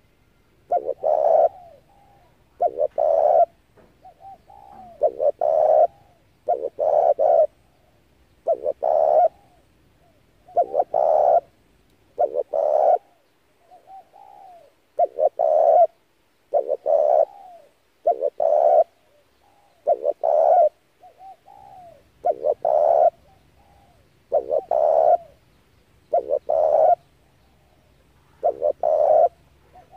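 Spotted dove cooing over and over, a short phrase of two or three low notes about every two seconds, with softer notes in between.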